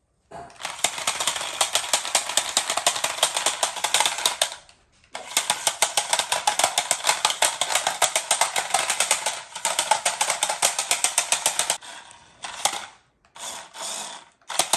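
Toy RC stunt car's small electric drive motors and plastic gearing running with a rapid, rattling clatter. It runs in two long spells of several seconds with a brief stop between, then in short bursts near the end.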